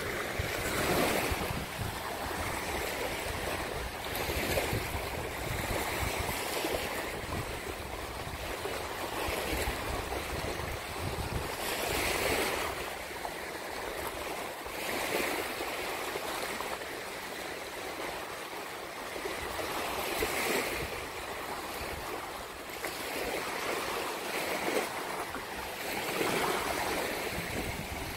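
Small waves washing in and out on a sandy beach, a continuous hiss that swells softly every couple of seconds, with wind rumbling on the microphone.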